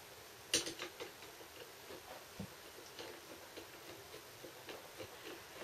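Screwdriver undoing a float bowl screw on a Honda CBR125R carburettor: faint, irregular small clicks and ticks of the tool turning in the screw, with a sharper click about half a second in.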